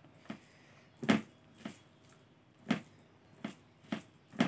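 Eating sounds from a person eating rice and curry by hand: a series of short, sharp wet smacks and clicks, about seven spread unevenly over four seconds.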